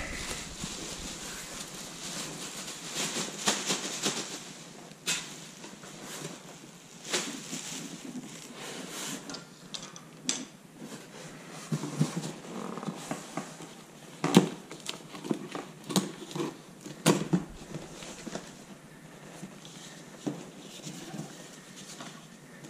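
Unpacking noises: a black plastic bag crinkles for the first few seconds, then scattered knocks, scrapes and rustles of cardboard and foam packing peanuts as packing tape on an inner box is slit with a blade.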